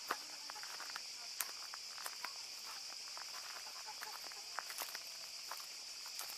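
Cicadas buzzing steadily and high, with scattered irregular clicks and footsteps.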